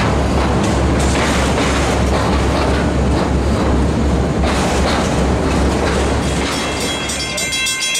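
Freight train of autorack cars rolling past close by: a steady, loud rumble of steel wheels on rail with clickety-clack over the rail joints. The rumble drops away near the end.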